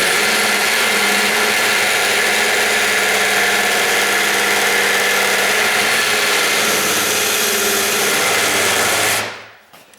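Electric drill running steadily with a wood drill bit driven in at an angle, cutting into the edge of the metal door strike plate. The motor stops about nine seconds in.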